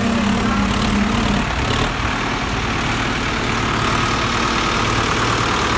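Tractor diesel engine running; a higher steady note fades about a second and a half in, and the engine settles into steady, lower running.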